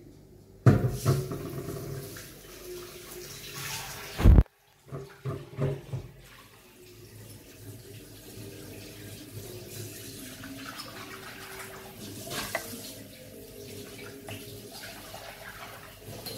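Running, splashing water. It starts suddenly, rushes loudly for about four seconds and cuts off abruptly, then gives way to a few short splashes and a quieter, steady wet noise.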